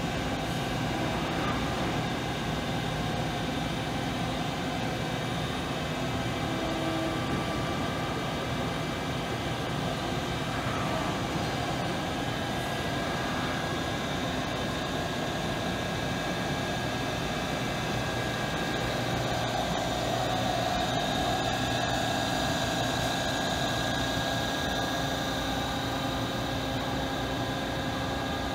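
Steady hum and fan whir of a Doosan VC400 CNC vertical machining center standing under power, with its electrical cabinet fans and spindle oil cooler running. Several steady tones run through it.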